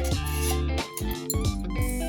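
Background music: an instrumental track with guitar, keyboard and a steady bass line.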